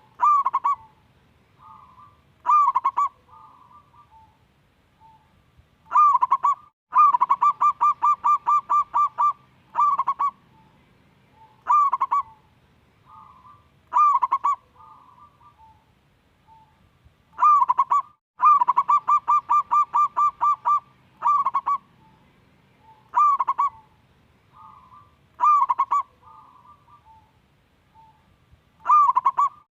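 Zebra dove (perkutut) singing: short cooing notes, some alone and some in quick runs of about ten notes, repeating every few seconds, with softer quiet coos in between.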